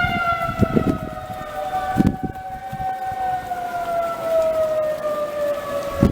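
Outdoor tornado warning siren sounding its steady alert tone, which starts to fall in pitch over the last few seconds as it winds down. Gusts of wind buffet the microphone now and then.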